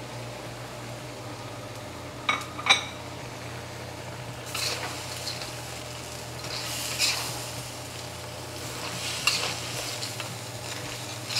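Metal spatula stirring and tossing crawfish in a carbon steel wok over a low sizzle, with two sharp clinks a little over two seconds in and repeated scraping strokes against the wok in the second half.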